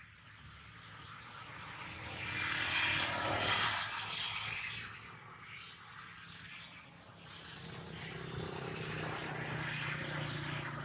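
Drone of a passing engine, building to its loudest about three to four seconds in, then easing and rising again near the end, with a steady low hum beneath.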